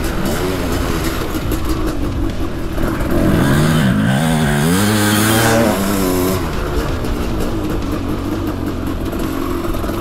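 A 700cc two-stroke motocross bike's engine pulling hard at low revs under part throttle, likened to a steam train. Its pitch drops about four seconds in as the throttle is eased, then climbs again as it is rolled back on, at its loudest between about three and six seconds.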